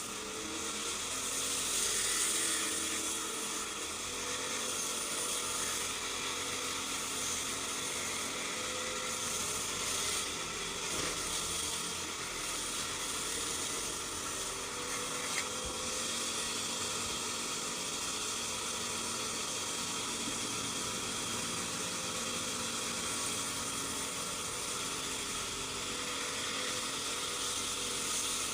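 A powered wood-cutting saw machine running steadily while cutting through large timber, with a constant hum and hiss.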